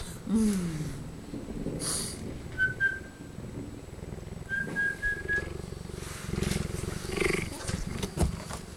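Cheetah purring, a rough pulsing low rumble that swells and fades in stretches. A short falling sound comes just after the start, and two brief high whistle-like tones come midway.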